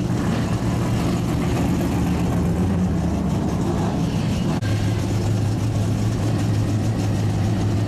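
Vehicle engines running at low speed in a steady drone. About halfway through there is a click, and the drone settles into a steadier, lower hum.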